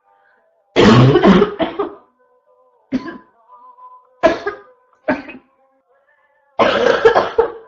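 A person's harsh, barking cough coming in repeated fits: a long run of coughs about a second in, single coughs at roughly three, four and five seconds, and another long fit near the end.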